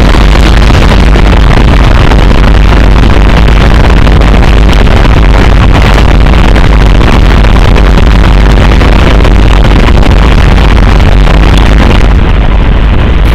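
Loud, heavily distorted noise music: a dense, continuous wall of noise with a heavy bass floor and no clear melody or beat. The top end thins out near the end.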